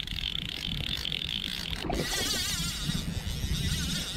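Wind buffeting the microphone in gusts, with a steady high hiss for about the first two seconds and then a high wavering sound.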